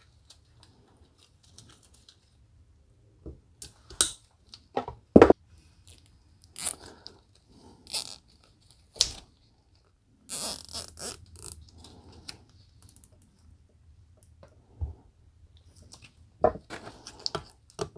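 Hand-handling noises at a workbench: scattered sharp clicks and crackles, with a longer rasping run about ten seconds in, as a plastic zip tie is worked tight around a driveshaft's slip joint.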